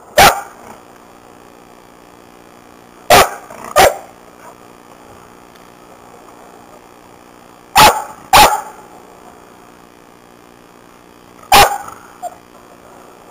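A dog barking: six loud, short barks spaced a few seconds apart, one, then two pairs, then one more, with a small softer bark right after the last.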